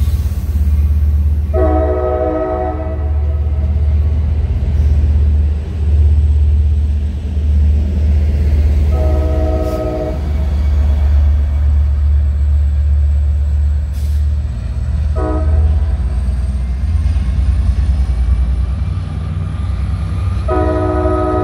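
Amtrak California diesel passenger trains at a station: a locomotive's engine gives a loud, steady low rumble while a multi-tone train horn sounds four times, with a long blast about two seconds in, a shorter one near the middle, a brief toot, and another long blast near the end.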